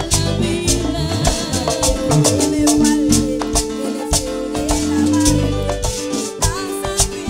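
Live band playing upbeat Latin-style worship music, with a shaker keeping a steady rhythm over bass and a long held note in the middle.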